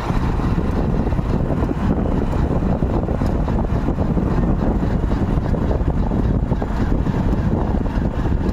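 Wind rushing and buffeting over the microphone of a moving motorcycle, with the bike's running and road noise underneath.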